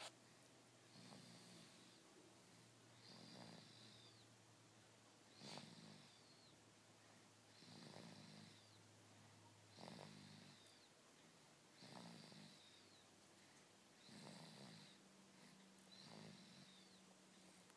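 Faint, regular snoring, one snore about every two seconds, each with a thin high whistle over a low tone, pig-like.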